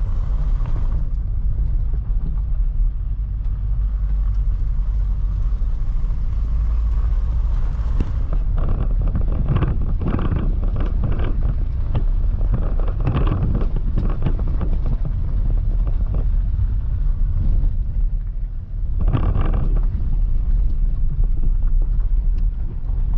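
Car driving: a steady low rumble, with noisier stretches of bumping or rattling about eight to sixteen seconds in and again around nineteen seconds.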